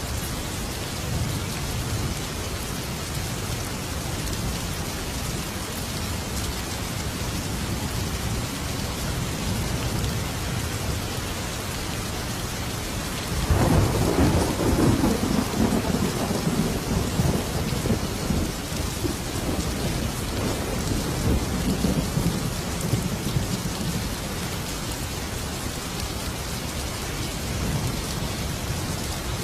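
Steady heavy rain with a clap of thunder breaking in about halfway through. The thunder is a deep rumble that rolls on for several seconds and then fades back under the rain.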